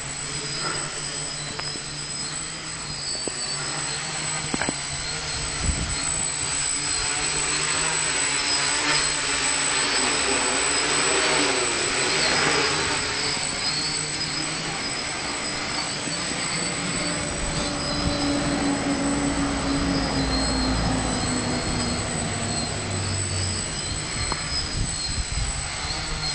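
DJI Flame Wheel quadcopter flying, its motors and propellers giving a steady buzzing whine that grows louder around the middle.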